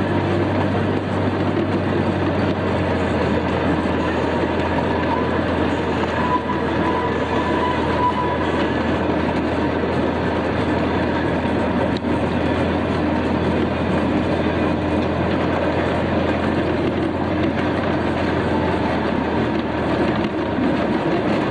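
Small amusement-park ride train running: a steady rumble of its motor and wheels on the track, heard from inside an open passenger car.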